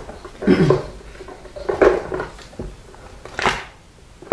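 Cardboard box and paper leaflet being handled and put away: a few short rustles and scrapes, the sharpest about three and a half seconds in.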